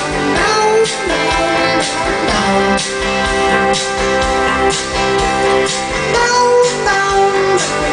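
Live rock band playing an instrumental passage: electric guitar and bass guitar over drums, with regular cymbal hits, heard loud through the stage PA.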